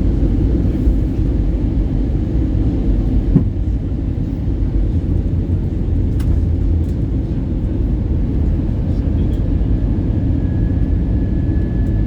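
Steady low rumble of an Airbus A320 in flight, engine and airflow noise, with a single sharp knock about three seconds in.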